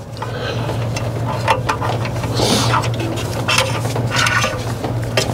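A steady low hum with a hiss over it, with scattered small clicks and rustles of gloved hands and a tool working cable ends in a metal back box.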